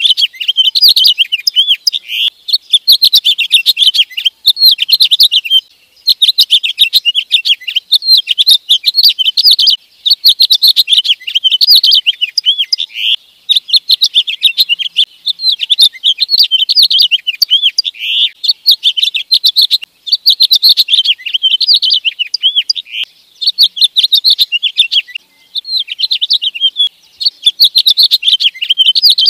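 House finch singing: long, rapid warbling phrases of high notes, one after another with short pauses between them.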